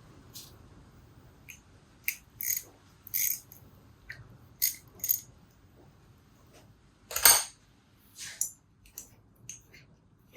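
Small metal carburettor parts and tools clinking and tapping: a dozen or so sharp, light metallic clinks, some with a brief ring. The loudest comes a little after the middle.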